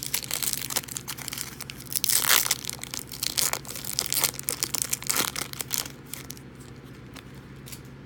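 Foil wrapper of a Topps Chrome baseball card pack being torn open and crinkled, a dense crackle with its loudest rip about two seconds in, dying down after about six seconds.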